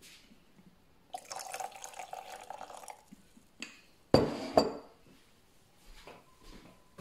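Liquid poured into a glass cup for about two seconds, then two sharp, ringing glass clinks about half a second apart.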